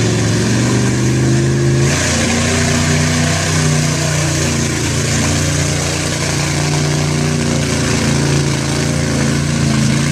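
Lifted pickup trucks' engines running at high revs while plowing through a deep mud pit, the pitch rising and falling with the throttle. The sound changes abruptly about two seconds in; after that it is a Ford pickup under load in the mud.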